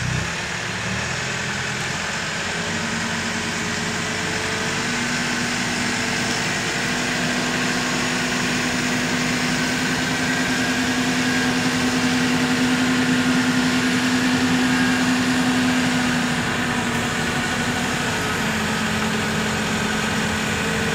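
Telehandler engine running steadily while carrying and lifting a heavy load, its pitch and level climbing gradually through the middle, then easing back about seventeen seconds in.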